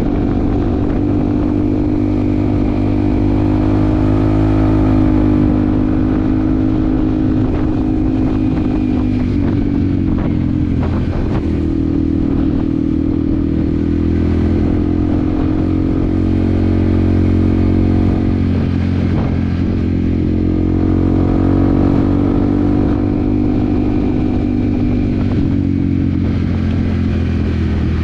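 Yamaha WR155R's single-cylinder engine running under way, its pitch rising and easing with the throttle. Its pitch dips briefly about 11 and 19 seconds in.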